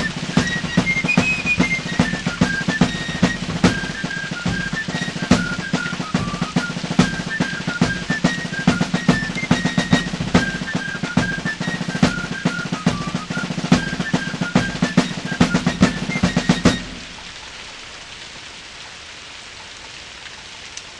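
Background march music: rapid snare drumming under a high piping melody. The music stops abruptly about 17 seconds in, leaving a steady faint hiss.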